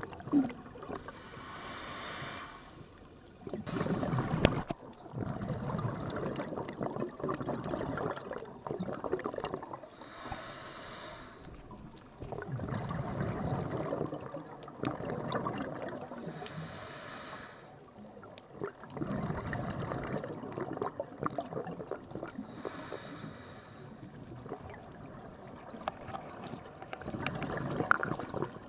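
Scuba regulator breathing underwater: about four long, gurgling rushes of exhaled bubbles, several seconds each, with quieter spells in between for the inhalations.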